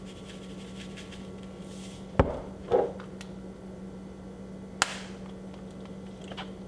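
Two sharp knocks about two and a half seconds apart, with a few lighter ticks, as kitchen containers are handled while seasoning ground beef, over a steady low hum.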